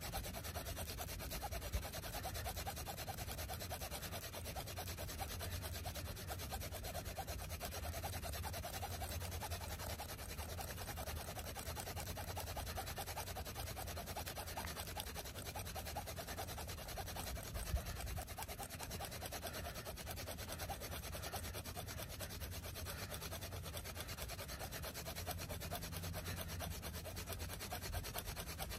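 Friction-fire hand drill: a velvetleaf spindle tip, spun rapidly back and forth between the palms, grinding steadily in the socket of a wooden hearth board, with a continuous fast rubbing.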